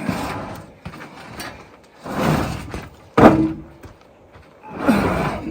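Heavy metal machinery being shifted: a few separate scrapes and creaks, with one sharp, loud metal knock about three seconds in that rings briefly.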